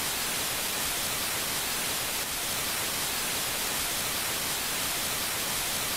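Steady TV-style static hiss, an even white noise with no other sound in it.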